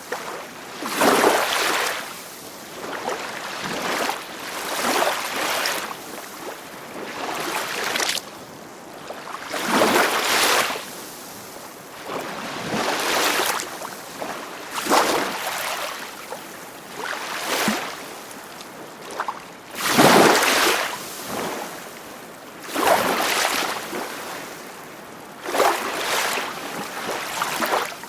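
Sea waves washing in and out in repeated surges of hiss, about one every two to three seconds.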